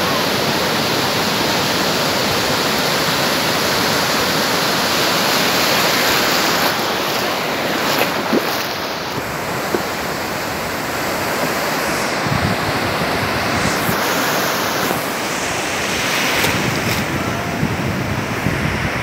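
Ocean surf breaking and washing through the shallows in a steady, unbroken rush.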